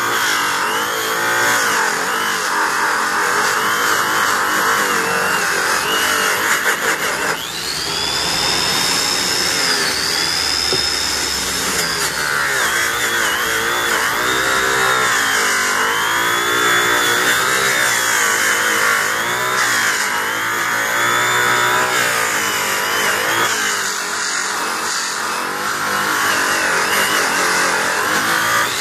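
High-speed 6,000 RPM, 15-amp electric rotary polisher running a cloth buffing wheel against an aluminium wheel rim for the finishing pass. The motor's whine wavers up and down as the buff is pressed and moved over the rim. It jumps higher about seven seconds in and settles back down about twelve seconds in.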